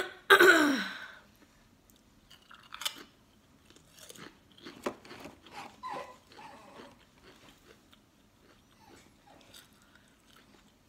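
A Pringles potato crisp bitten and chewed: a string of short, crisp crunches over the first several seconds, growing fainter as it is chewed down. Just after the start, a brief louder sound slides down in pitch.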